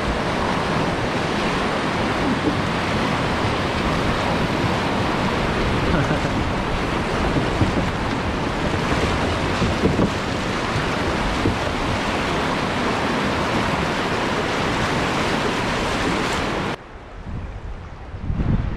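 Loud, steady rush of river whitewater as the boat runs through a rapid. The rushing breaks off abruptly near the end, giving way to a much quieter background.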